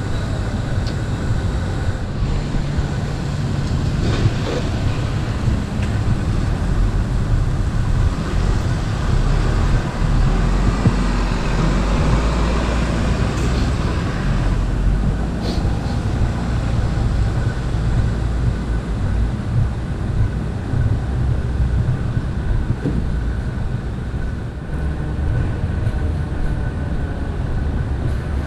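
Steady low rumble of city traffic, swelling around the middle as a vehicle passes.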